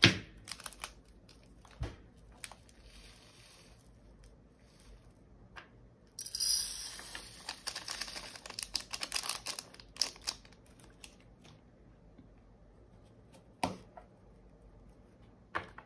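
A small plastic bag of diamond painting drills crinkling as it is torn open, with light clicks of small plastic pieces now and then. The crinkling runs for a few seconds from about six seconds in, with single clicks before and after.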